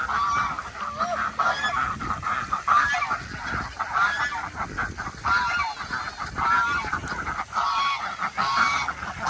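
A group of geese honking over and over, many short calls following and overlapping one another.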